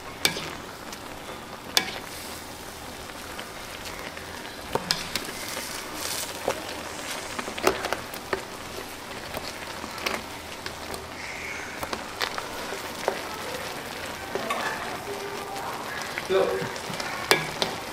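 Instant noodles in a shallow layer of water bubbling and sizzling at a boil in a wide black pan, stirred with a spatula that clicks and scrapes against the pan at irregular moments.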